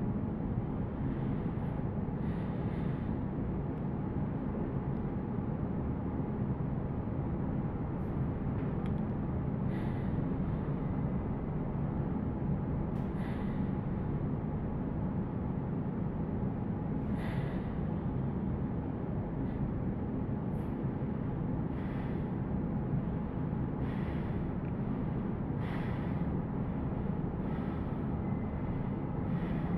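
Steady low background rumble, with faint short hissy sounds every couple of seconds.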